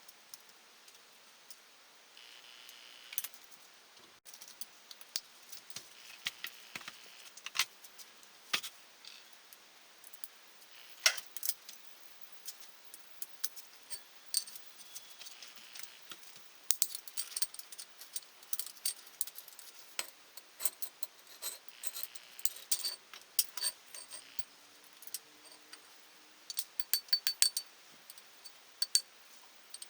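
Small metal engine parts and tools clinking against each other: irregular sharp clicks and taps, sparse at first and busier in the second half, some with a brief high ring.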